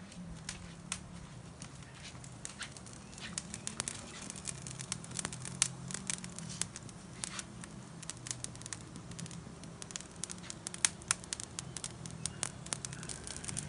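Wood fire crackling in a brick firebox: irregular sharp pops and snaps, several a second, some much louder than others.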